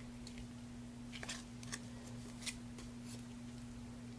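Trading cards being handled and slid off a stack: a few faint, short flicks and swishes, over a steady low hum.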